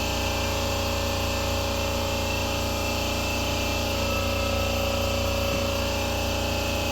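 Steady mechanical drone of a running machine, an even hum with constant tones that does not change.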